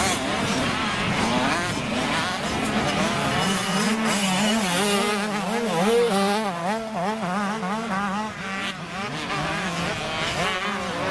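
85cc two-stroke motocross bike engines revving hard on and off the throttle, more than one at once, their pitch rising and falling quickly as the riders work the track.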